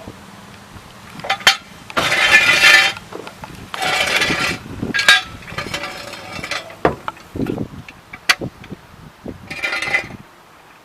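Metal clinks and knocks from working a car jack and tools, with three rattling bursts of about a second each.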